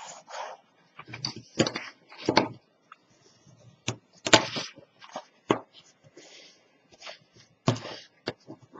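Stiff black cardstock being handled and creased with a bone folder on a cutting mat: irregular taps, knocks and papery rustles, a few louder knocks scattered through.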